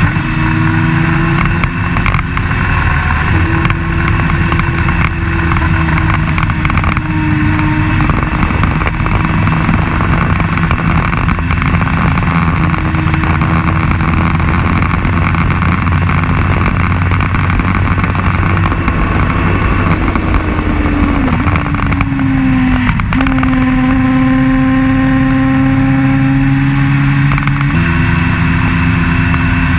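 Open-wheel race car's engine heard on board at racing speed, running at a mostly steady pitch. Around twenty-one seconds in the note sags and drops sharply, then holds steady again at a new pitch, typical of lifting off and changing gear.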